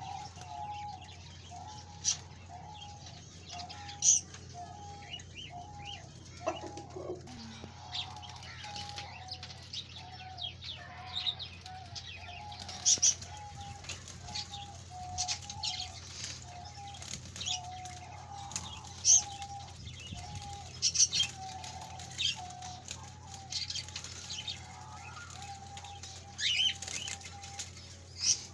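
A chicken clucking in a long run of short, evenly repeated notes, about two a second, easing off after about twenty seconds. Sharp high chirps from small cage birds cut in throughout and are the loudest sounds, over a steady low hum.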